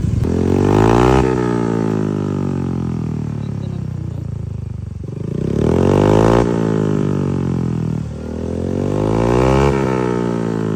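Yamaha Mio M3 scooter's single-cylinder engine breathing through a freshly fitted aftermarket Kvin exhaust pipe, revved three times; each rev climbs quickly and then falls slowly back toward idle.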